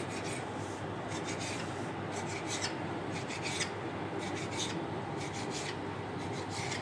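Kitchen knife cutting slits through a sheet of bread dough, its blade scraping on the stone countertop in short repeated strokes that come in quick runs with short pauses.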